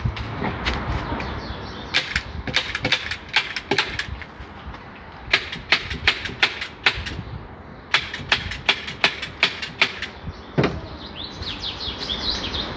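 Upholstery staple gun firing staples in several quick runs of sharp clicks, fastening fabric to a sofa frame.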